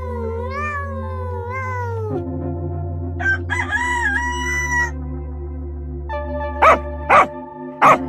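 A cat meowing, then a rooster crowing once, then three loud, short dog barks near the end, all over steady background music.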